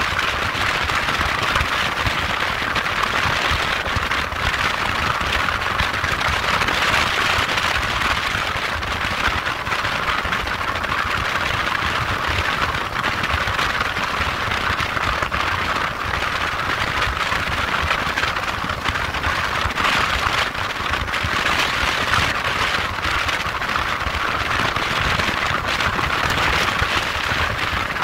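Motorcycle riding at a steady road speed: a constant rush of wind noise over the engine and tyre rumble.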